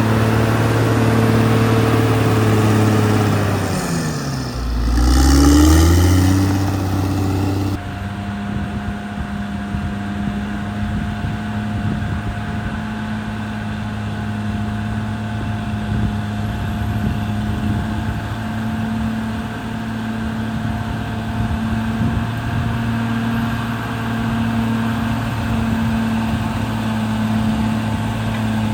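CAT D6R XL bulldozer's diesel engine running. About four seconds in, its note dips in pitch and then climbs back up, swelling louder. Near eight seconds the sound changes suddenly to a steady, duller engine note.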